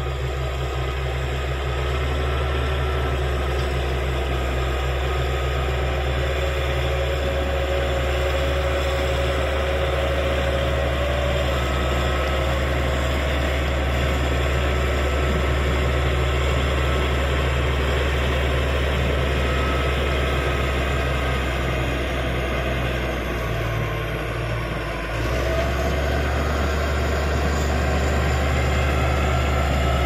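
Caterpillar D6G crawler bulldozer's diesel engine running steadily under load as the dozer pushes wet soil. It eases briefly about three-quarters of the way through, then comes back up.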